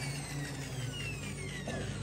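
Electric drill motor winding down after being switched off: a falling whine that fades away over a steady low hum.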